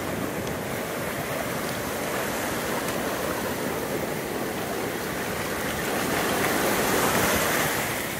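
Ocean surf washing over the shallows of a sandy beach, growing louder near the end as a wave rolls in.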